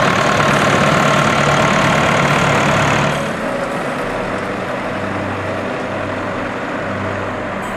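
Old tractor engines running: first a close, loud engine, then about three seconds in the sound drops abruptly to a line of old tractors driving past on the road.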